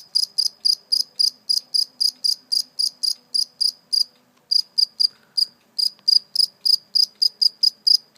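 Cricket chirping at close range: a steady run of short, clear chirps, about four a second, with a brief pause about four seconds in. The chirps are made by the male rubbing his forewings together.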